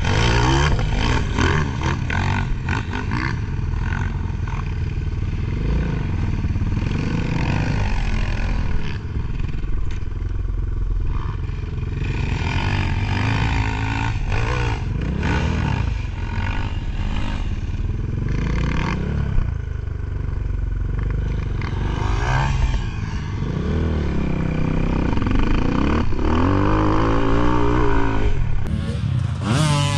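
Enduro dirt bike engine revving up and falling back again and again while being ridden off-road.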